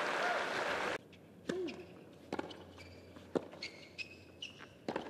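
Crowd applause that cuts off suddenly about a second in. Then a tennis rally on a hard court: sharp racket-on-ball strikes about a second apart, with a few short high squeaks.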